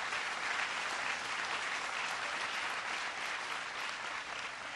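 Audience applauding, steady, dying away near the end.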